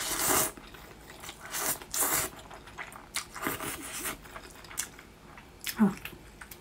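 A mouthful of spicy instant noodles slurped loudly at the start, followed by chewing with several shorter bursts of slurping and chewing noise.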